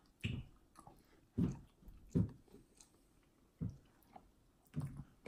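Someone eating instant ramen noodles with a fork from a plastic container: chewing and eating sounds, with about five separate short sounds roughly a second apart.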